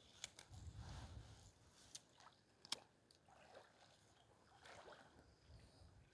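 Near silence: a faint low rumble with a few faint sharp clicks, one near the start, one about two seconds in and one near the three-second mark.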